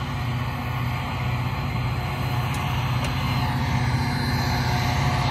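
Diesel locomotive engine running with a steady low rumble, slowly growing a little louder.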